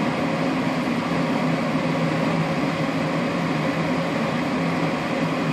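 Two-stage propane furnace running steadily in high stage: an even rushing noise with a low steady hum.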